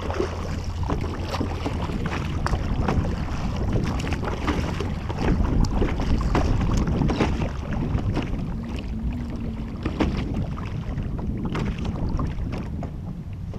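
Paddle strokes splashing and water slapping against a plastic sea kayak, with wind buffeting the action camera's microphone.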